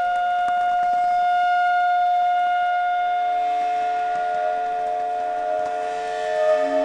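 Free-improvised soundtrack music: several steady, overlapping held tones forming a drone, with a new lower tone coming in about halfway and a couple of swells near the end.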